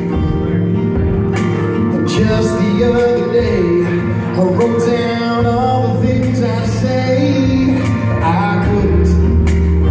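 Live band playing a song, a singer's voice over keyboard and guitars, amplified through a DB Technologies DVA Mini line array PA.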